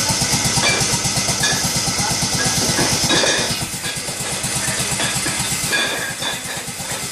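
A small motor, most likely the bottle-filling machine's pump, running steadily with a fast, even pulse. It eases off slightly about halfway through.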